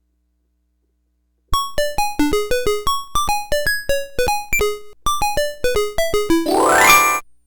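Electronic tune from the VTech Alphabet Fun Desk's sound chip, recorded straight from its audio: a quick melody of short, bright synth notes that starts about a second and a half in after dead silence. Near the end, a rising sweep plays and then cuts off suddenly.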